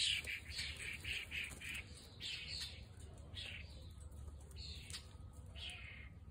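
Chickens calling: a quick run of short, high-pitched calls in the first two seconds, then single calls about once a second.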